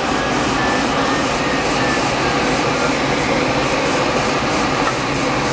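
Steady rushing airflow and cockpit noise inside a light aircraft in flight, with a few faint short high beeps in the first couple of seconds.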